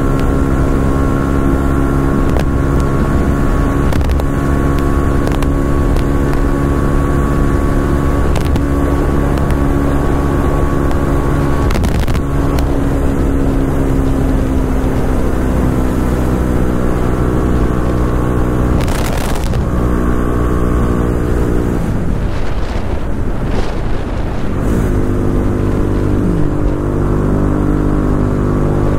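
Vehicle engine running steadily. About three quarters of the way through its note breaks and sweeps, then settles at a new steady pitch.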